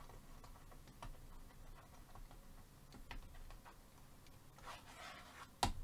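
A stylus tapping and scraping on a touchscreen while handwriting Chinese characters: a few faint, irregular clicks, with a sharper click near the end.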